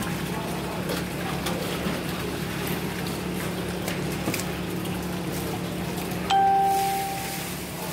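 A metal basin strikes something about six seconds in and rings out with a clear, bright tone that dies away over about a second. Under it a machine hums steadily and water trickles.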